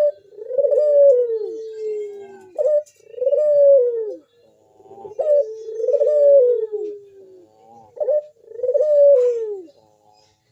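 Local puter dove (domestic turtle dove) cooing its song: a short note followed by a long, low, falling coo, repeated four times about every two and a half seconds, then stopping near the end.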